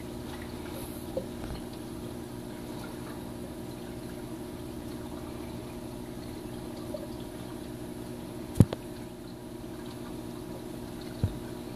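Steady low hum and watery trickle of running aquarium equipment, broken by a sharp knock about eight and a half seconds in and a lighter one near the end.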